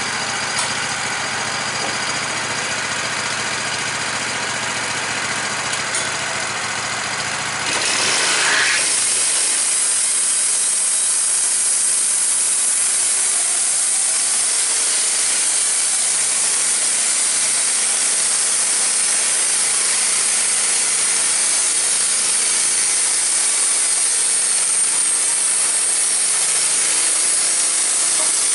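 Wood-Mizer LT15 band sawmill's engine idling, then revving up about eight seconds in as the band blade engages, followed by the steady, louder hiss of the blade cutting through a white oak log.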